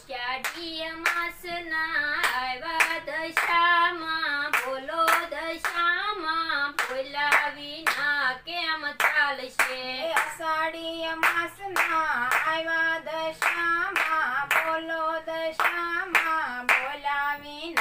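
A voice singing a Gujarati devotional song, a bhajan to Dashama, to steady rhythmic handclaps, two to three claps a second.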